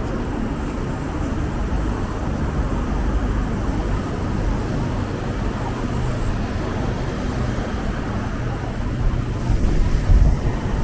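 City street traffic noise heard from a moving bicycle, a steady low rumble of passing vehicles that swells louder briefly near the end.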